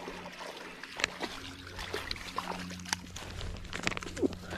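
Creek water splashing and trickling, with scattered clicks and knocks, as a small largemouth bass is landed and handled.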